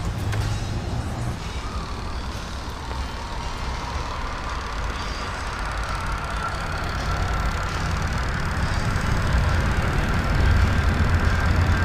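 Twin-tub washing machine's spin-dryer motor running, a steady hum with a faint whine that slowly grows louder through the second half.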